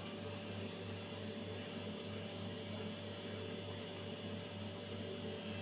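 Steady low machine hum with a thin, faint whine over an even hiss: the room's background sound.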